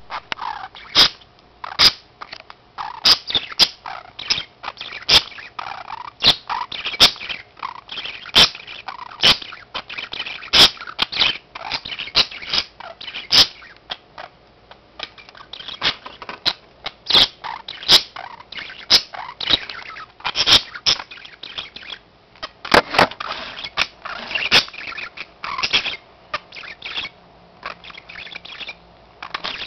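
Two budgerigars chirping and chattering softly while they feed each other beak to beak, with many sharp clicks mixed in.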